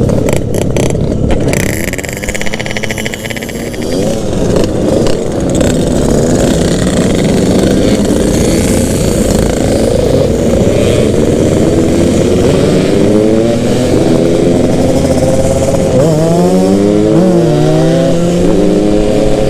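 Yamaha RX-King's single-cylinder two-stroke engine running on the move, its pitch repeatedly climbing under throttle and falling back at gear changes, with a sharp drop about sixteen seconds in.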